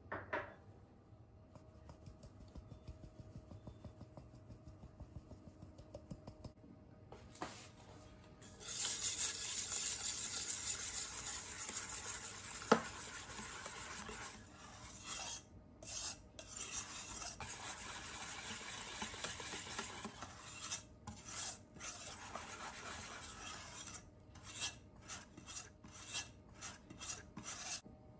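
A wire whisk scraping round a stainless steel bowl, mixing sifted flour and cornstarch into a cheesecake batter. The whisking starts about a third of the way in, runs steadily with one sharp clink of the whisk against the bowl, then goes on in stop-start strokes near the end. Before it there is only faint light tapping as cornstarch is shaken through a metal sieve.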